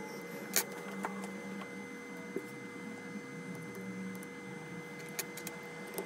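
Several light, sharp clicks and taps of fingers and small tools on the parts of an opened iPhone 11, the loudest about half a second in, over a steady background hum with a thin constant tone.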